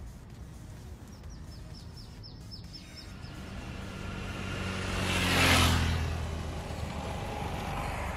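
A motor vehicle drives past on the road, rising to its loudest about five and a half seconds in and then fading. Earlier, between about one and three seconds in, a bird gives a quick run of about ten high chirps.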